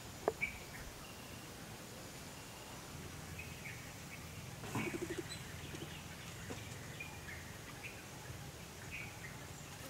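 Birds chirping now and then over a faint, steady outdoor background, with a brief lower call about five seconds in.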